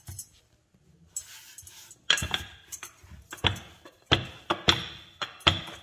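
A knife chopping through rolled-out namak pare dough onto the board: a series of about ten sharp knocks with a slight ring, starting about two seconds in, at uneven spacing.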